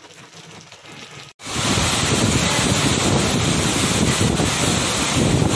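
Storm wind and heavy rain blasting against the microphone, starting suddenly and loud about a second and a half in, after a short stretch of much quieter outdoor noise.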